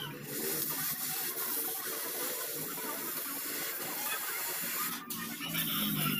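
A steady hiss that stops briefly about five seconds in, then starts again.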